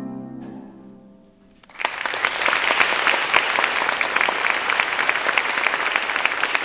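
The last chord of a harp ensemble dies away, and about two seconds in audience applause breaks out and keeps going.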